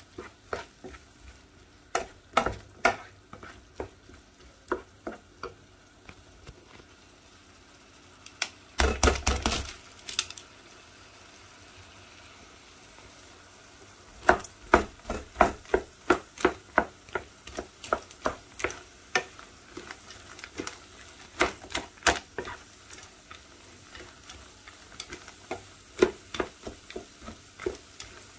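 Wooden spoon stirring an onion, tomato and spice sauté in a nonstick pan, with scattered knocks over a faint sizzle. About nine seconds in comes a dense rattle of peeled split fava beans dropped into the pan. From about halfway through, many quick knocks and clatters follow as the beans are stirred in.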